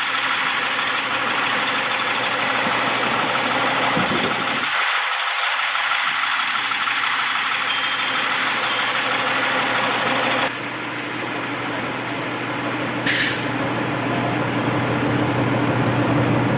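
Heavy diesel fire-truck engine running steadily, with a short hiss about 13 seconds in.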